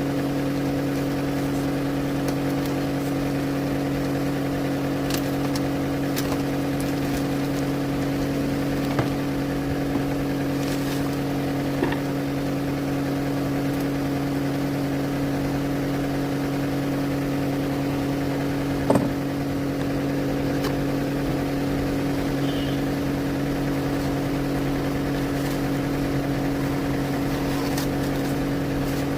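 A steady machine hum holding one even pitch, with a few light clicks, the sharpest about nineteen seconds in.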